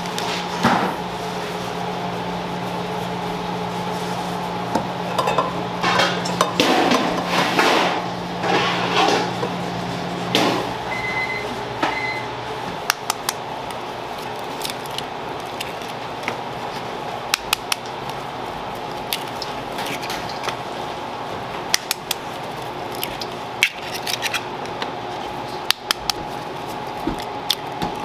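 A plastic bag liner rustles as powder is scooped out of it, over a steady hum that stops about ten seconds in. Two short beeps follow. Then eggs are cracked one after another against a stainless steel bowl, a series of sharp taps.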